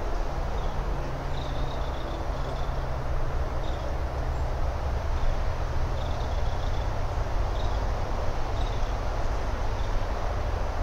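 Steady outdoor background: a continuous rushing noise with a low hum underneath, and short, faint high chirps scattered through it.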